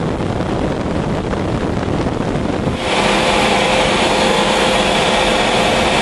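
Jet engine noise heard inside a fighter cockpit: a steady rush that, about three seconds in, steps up louder, with several steady whining tones coming in.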